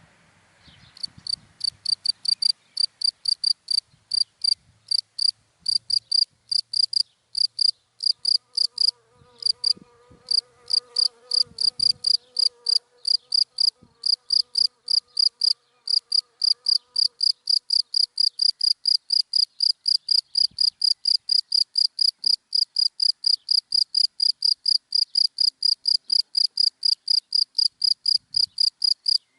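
A cricket chirping in dry grass, starting about a second in with a few halting chirps, then settling into a steady, even run of high chirps at about three a second. A faint wavering hum sits beneath it through the middle.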